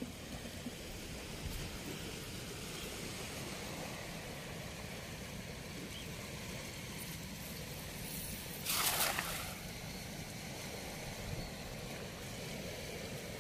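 Steady rush of flowing river water at a weir, with a brief splash about nine seconds in.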